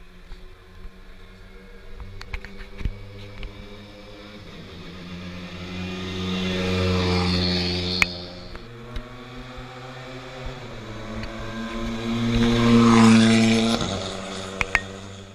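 Two rally cars driving past one after the other at low speed, each engine note swelling as it nears and fading as it goes by: the first passes about seven seconds in, the second about thirteen seconds in. A few sharp cracks stand out, the loudest about eight seconds in.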